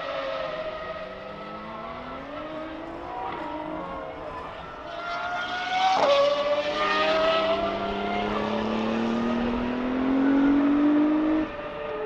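Track supercars at speed, engines revving high through the gears. About six seconds in, one sweeps past close with a sudden drop in pitch. Near the end another accelerates with a rising note that cuts off suddenly.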